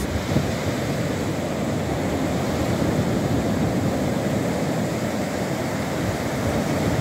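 Waves breaking and washing up on a sandy beach, a steady rushing surf, with wind buffeting the microphone.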